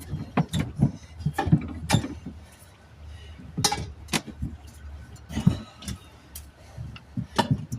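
Metal tire spoons clinking and knocking against the wheel rim in irregular strikes as the new tire's soaped bead is levered onto the rim by hand.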